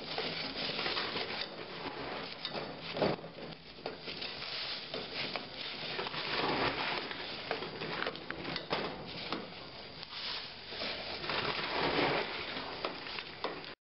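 Rice Krispies cereal being stirred into melted marshmallow in a pot with a spatula: a continuous crunchy rustling that swells and fades, with scattered scrapes and knocks against the pot.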